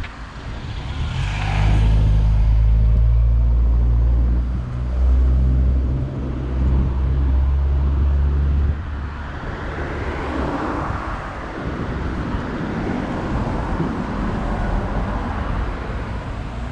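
A motor vehicle's engine running close by with a loud, steady low hum for several seconds, which drops away about nine seconds in. After it, a car passes with a rise and fall of tyre and road noise.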